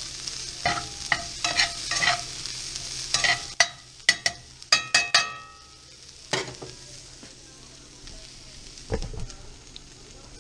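Poblano pepper, corn and onion sizzling in a cast-iron skillet while a metal utensil stirs them, scraping and clacking against the pan. The stirring strokes come quickly through the first half, with a few ringing taps about four to five seconds in, then the sizzle goes on with only a couple of knocks.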